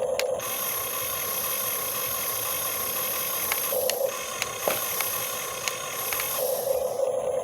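Electric gear motors of a Huina 1535 RC excavator whirring steadily, with a few sharp clicks. The whirr starts just after the beginning and stops about a second before the end.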